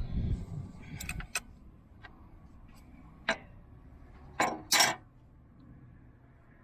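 Sharp metal clinks and clicks of a wrench working a stubborn oil drain plug on a riding mower, a few scattered ones and then two louder ones a little after the middle, with a low rumble of handling noise in the first second.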